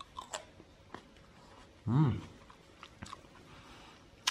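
A Carnival (CRV) grape being bitten and chewed close to the microphone: a scatter of small crisp crunches and clicks. About two seconds in the eater gives a short voiced hum with a falling pitch.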